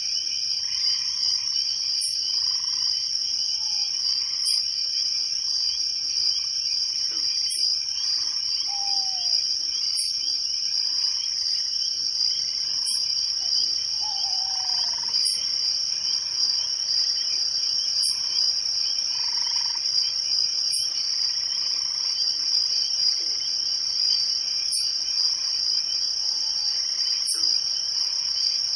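Night chorus of crickets trilling steadily, with a short high chirp repeating every two to three seconds and occasional short frog calls mixed in.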